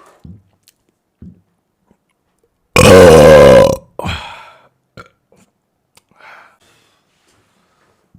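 A person's single loud, drawn-out burp about three seconds in, lasting about a second, its low pitch wavering as it goes.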